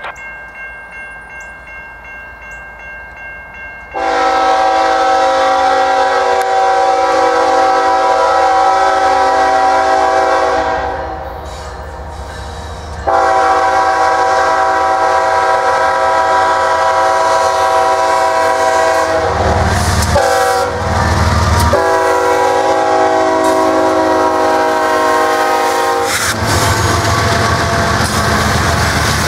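Norfolk Southern freight locomotives approaching: the lead unit's air horn sounds long blasts of about six seconds each, with a brief break partway through. The diesel locomotives then pass close by, and the train's wheels clatter over the rails.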